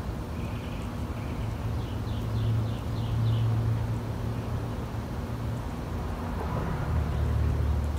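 Low rumble of passing vehicles, swelling about two seconds in and again near the end, with a bird giving a quick run of about six chirps around two to three seconds in.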